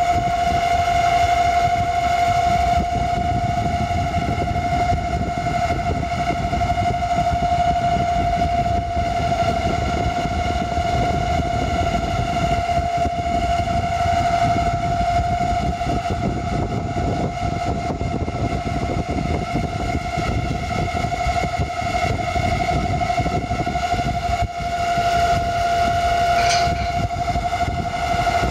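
Hitachi air-conditioner outdoor unit's fan motor running with a steady whine over a low rumble: bearing noise, a common fault put down to poor bearing quality.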